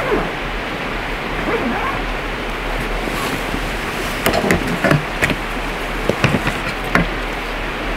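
Steady rush of a river flowing past, with a few short clicks and knocks in the second half.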